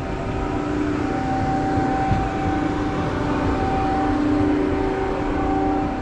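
Tivoli Orbiter spinning ride's drive machinery running with a steady two-tone whine as the ride spins, over a rumble of wind buffeting the microphone.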